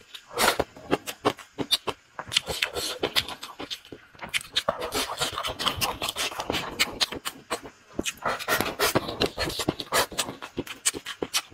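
A man eating close to the microphone: slurping leafy greens off chopsticks and chewing with his mouth open, a dense run of wet smacks and clicks with hissing slurps.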